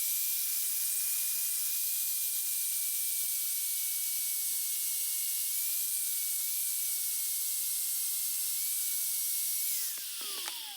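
Power tool with a cutoff wheel grinding a flat spot into a window motor's shaft: a steady high whine over a hiss of grinding. Near the end the tool is switched off, and its pitch falls as the wheel spins down.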